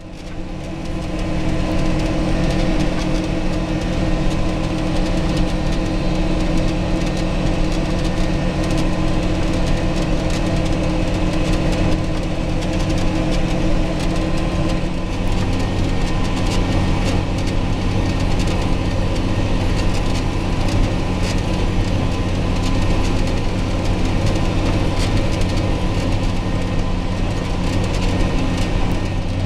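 John Deere 8320 tractor's six-cylinder diesel engine running steadily while pulling a disc harrow through a field, heard from inside the cab. The sound fades in over the first second or so.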